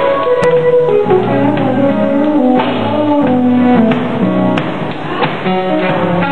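Gospel band music with pitched melody lines moving note to note over a steady beat.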